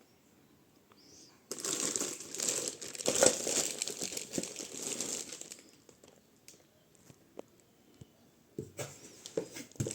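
Packaging crinkling and rustling as it is handled, a dense stretch lasting about four seconds from a second and a half in, then a few light clicks and a shorter rustle near the end.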